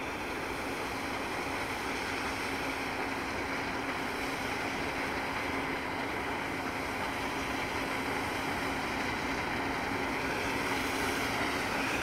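New Holland combine harvester running while cutting oilseed rape: a steady machine drone with a constant hum through it, growing slowly louder as the combine comes closer.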